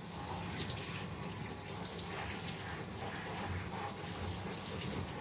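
Bath water running steadily from a tap.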